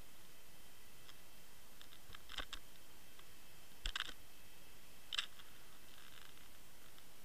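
Steady hiss as picked up by a camera inside an underwater housing trolled on a fishing line, with a few sharp clicks and taps: a small cluster about two and a half seconds in, the loudest near four seconds, and one more a second later.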